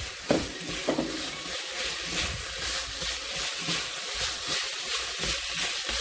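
Pork strips, bell peppers and onion sizzling in a hot wok as they are stir-fried, a spatula working them in a steady rhythm of about two strokes a second. A couple of knocks about a second in as the vegetables go in.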